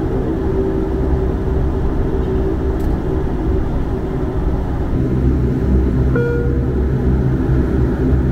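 Bombardier DHC-8 Q400's Pratt & Whitney PW150A turboprop engines and propellers running, heard from inside the passenger cabin as a steady drone with a low hum. A brief high tone sounds about six seconds in.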